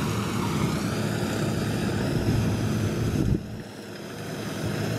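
Drone propellers whining, with a steady low rumble underneath. The sound drops suddenly a little over three seconds in, then slowly builds again.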